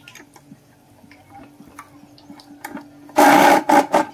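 Hand-cranked spiral potato cutter: the threaded rod ticks and clicks as it is turned and the blade slices the potato into a spiral, then about three seconds in come two loud short bursts of metal scraping as the rod is pulled back through the frame.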